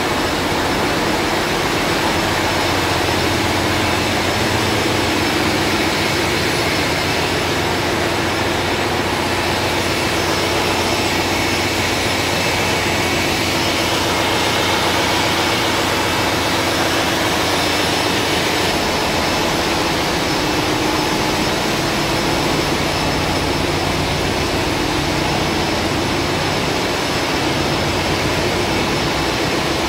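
Ship's engine-room machinery running: a loud, steady din with a low hum beneath it that does not change.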